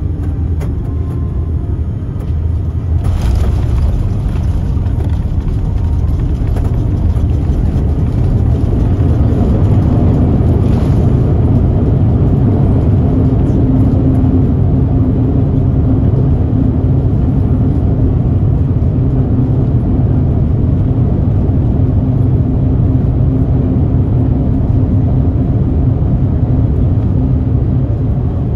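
Cabin noise of a Boeing 787-9 airliner rolling on the ground at the airport: a steady, heavy rumble of engines and wheels that grows louder a few seconds in, with a steady hum joining partway through.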